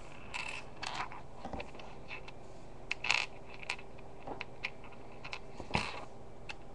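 Plastic Lego bricks clicking and clattering against each other as they are sorted by hand, in scattered irregular taps with a few louder clacks.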